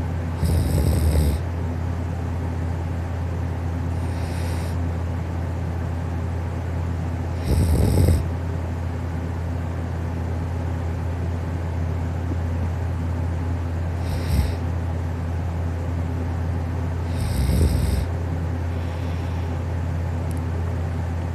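A person snoring softly in sleep: four snores spaced several seconds apart, the third one brief, over a steady low hum.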